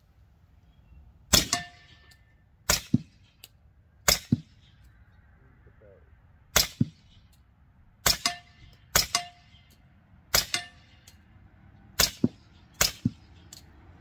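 Nine suppressed shots from a 5.5-inch Sig MCX Rattler in 300 Blackout firing subsonic rounds through a 30-cal suppressor, fired one at a time at uneven intervals. Each sharp report is followed a fraction of a second later by a second, quieter crack.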